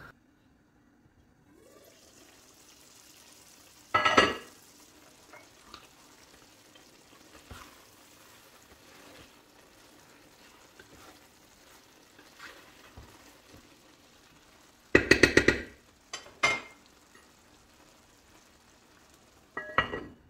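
Bulgur pilaf sizzling softly in a pot as it is stirred with a wooden spoon. Loud clatters of the pot and its lid come about 4 seconds in, as a quick rattling run near three-quarters through, and again at the very end as the lid goes back on.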